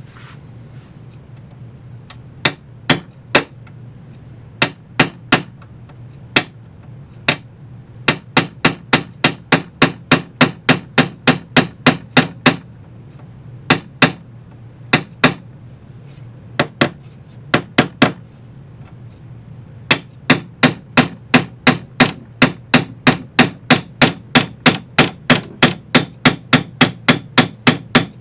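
A hammer striking repeatedly in runs of sharp, ringing taps, about two to three a second, with short pauses between runs, over a steady low hum.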